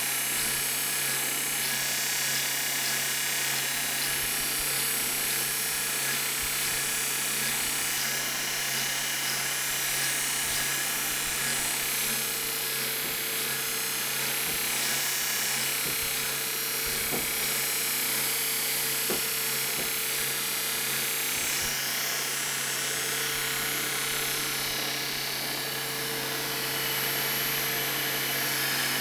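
Homemade surface belt grinder running steadily: a 2 HP electric motor drives the abrasive belt at about 32 m/s with a constant hum, and the belt grinds a 52100 steel blank with a steady hiss.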